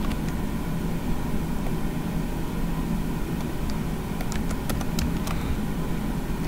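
Computer keyboard typing: a short run of key clicks from about four to five seconds in, over a steady low hum.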